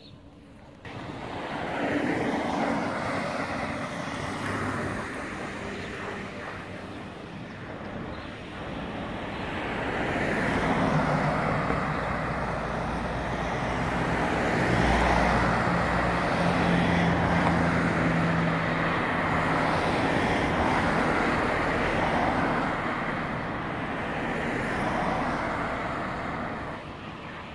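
Road traffic: cars driving past close by, engine and tyre noise swelling as vehicles come up and pass, loudest about halfway through.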